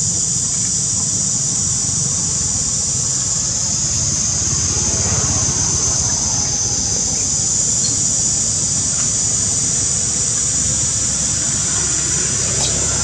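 Steady high-pitched buzzing of a forest insect chorus over a low rumble, with a faint squealing call about five seconds in.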